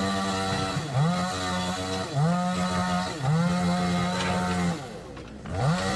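Chainsaw engine revved up to high speed again and again: each time its pitch climbs quickly, holds for half a second to a second and a half, then drops back. After four runs there is a short lull, and it revs once more near the end.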